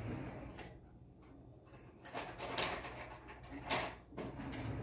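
Handling noises from preparing food at a kitchen counter: several short bouts of rustling and scraping, over a low steady hum.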